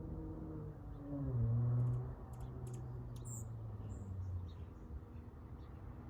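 Exhaust of a Dodge Charger SXT's V6 through Flowmaster Outlaw mufflers at low road speed. About a second in the pitch drops and the note swells briefly under throttle, then eases off and settles lower. A few faint high clicks come near the middle.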